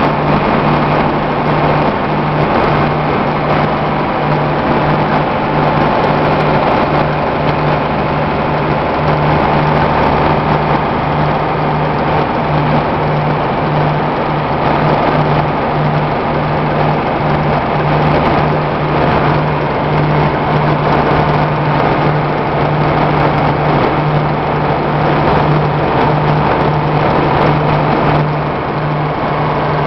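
Eight-cylinder ABC marine diesel engine of a Rotortug RT80-28 tug idling, loud and steady with an even low pulse, one cylinder cover off so its valve rockers are exposed.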